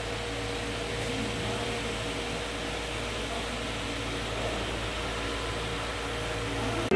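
Steady ambient noise with an even, low hum throughout.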